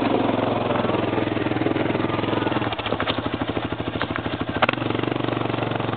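Quad (ATV) engines running at low revs on a steep rocky climb. From about three seconds in, one engine's slow, even firing pulses come to the fore for about two seconds, around ten a second, with a sharp click near the end of that stretch.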